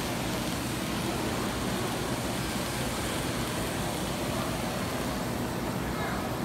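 Steady, even background noise with no distinct events: the hall's background noise, with a model freight train rolling past on its track.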